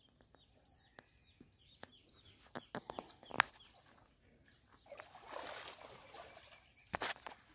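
Water sloshing and splashing as Banni water buffaloes shift about in a muddy wallow, with small birds chirping. A few sharp clicks come about halfway through.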